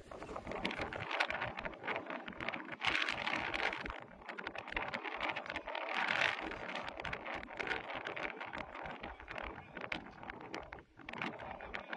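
Lions feeding on a buffalo carcass: irregular tearing, crunching and scraping as they bite and pull at the hide and flesh, with louder rasping stretches about three and six seconds in.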